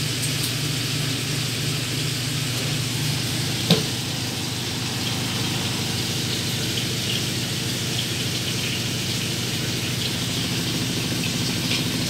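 Front-loading washing machine running a wash: steady motor hum with water sloshing in the turning drum. A single sharp click about four seconds in.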